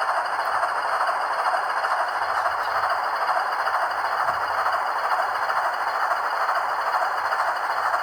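Model shark nose diesel locomotive running under DCC sound: the MRC decoder's engine sound from the small speaker glued in the shell, mixed with the hum of its cheap three-pole motors and the wheels on the track. A steady, even sound with most of its energy in the middle and upper range and little bass.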